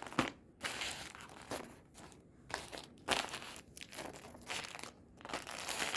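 Crinkling and rustling in several irregular bursts as a pile of homemade squishies is gathered up and handled.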